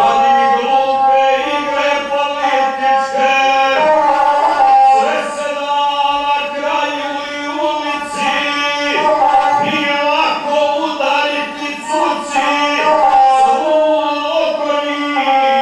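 Man singing an epic song in the guslar style, accompanying himself on the gusle, a one-stringed bowed folk fiddle. The bowed string holds steady notes under the voice.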